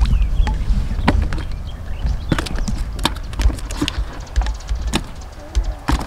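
Crucian carp being gathered off wet wooden pier planks into a bucket of water: about a dozen irregular sharp knocks and slaps of fish on the boards and in the bucket, over a low rumble of wind on the microphone.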